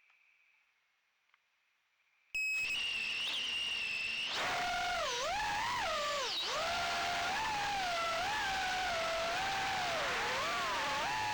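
Brushless motors of a 130 mm FPV quadcopter (Sunnysky R1106 5500kv) whining. They cut in suddenly about two seconds in with a steady high idle whine. From about four seconds in, the pitch swoops up and down with the throttle in flight.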